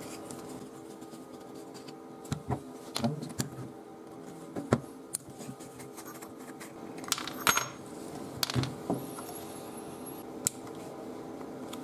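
A screwdriver prying the metal cutting blade off an old hair clipper: scattered metallic clicks, knocks and a short scrape, one every second or so, over a faint steady hum.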